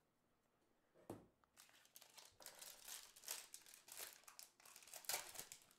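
Faint crinkling and tearing of a baseball-card pack wrapper being handled and opened. It starts with a click about a second in, then a run of crackly rustles.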